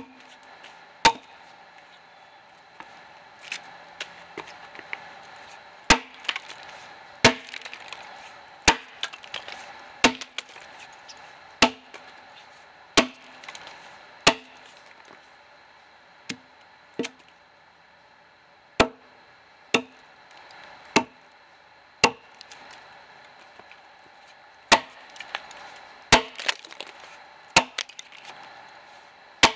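Axe chopping into a dead ash log: about twenty sharp strikes, mostly one every one to one and a half seconds, with a pause of a few seconds near the start.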